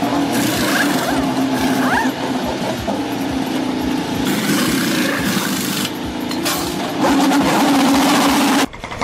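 IndyCar engine running at a steady idle during a pit stop, with pneumatic wheel guns hissing and whirring in short bursts as the tyres are changed. The sound cuts off abruptly near the end.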